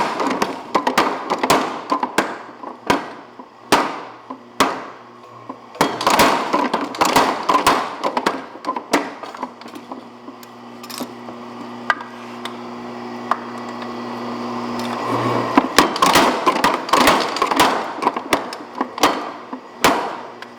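Little Giant 250 mechanical power hammer striking hot steel in runs of rapid blows, several a second, forging a bar into two cross peens. Between runs, around the middle, its electric motor hums steadily.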